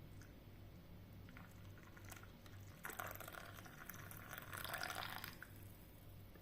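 Water pouring for about two and a half seconds, starting about three seconds in, after a few light clicks.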